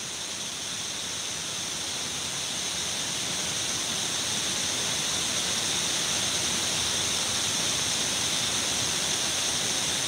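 Shiraito Falls, a wide curtain of many thin streams of water pouring into a pool, making a steady rushing hiss that grows a little louder over the first few seconds and then holds.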